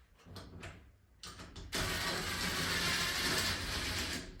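A few light clicks, then from about a second and a half in a cordless screw gun runs steadily in reverse, backing a lock mounting screw out of the door hardware.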